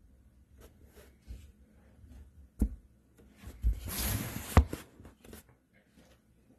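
Light clicks and knocks of handling around a 9-volt battery and the clip leads wired to a graphics-card fan, with a short scraping rustle about four seconds in that ends in a sharp click.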